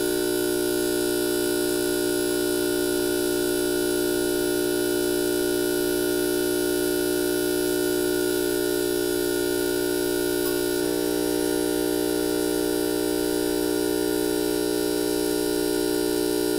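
Gaggia Classic espresso machine's vibratory pump humming steadily while pulling an espresso shot, its tone shifting slightly about eleven seconds in.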